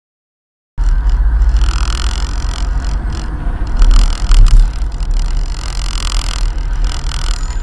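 Dash-cam microphone inside a moving car: steady low engine and road rumble with hiss. It starts abruptly after almost a second of silence and swells louder for a moment about four seconds in.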